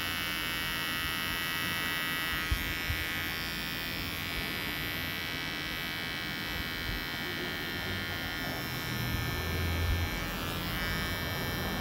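Electric hair trimmer with a T-blade running with a steady high-pitched buzz as it cuts along the hairline at the temple and sideburn.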